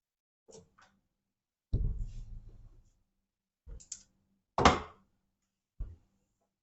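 Scattered clicks and knocks of hand work on a fire alarm panel's wiring and metal box: a heavy low thunk about two seconds in that dies away over about a second, a sharp loud click a little past halfway, and a few fainter clicks and taps around them.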